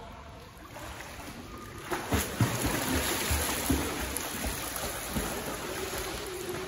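A swimmer's freestyle kicks and arm strokes splashing in a swimming pool: churning water with irregular slaps, starting about two seconds in.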